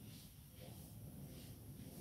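Near silence: low room hum with faint soft swishes coming every half second or so.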